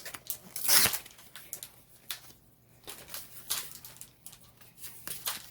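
Trading cards and a foil booster-pack wrapper being handled: a run of short rustles, crinkles and card clicks, the loudest about a second in.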